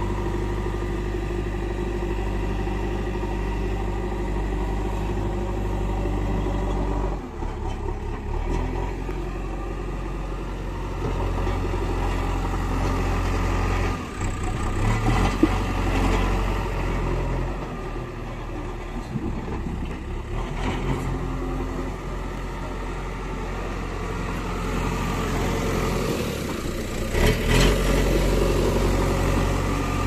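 JCB 3DX backhoe loader's diesel engine running under load while it works the loader. It runs steadily at first, then changes pitch and load about seven and fourteen seconds in. A few sharp knocks come through, one about halfway and a louder one near the end.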